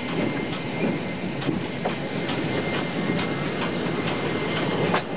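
Steam locomotive running slowly towards the listener along the track: a steady rushing noise with irregular clanks and clicks from the train.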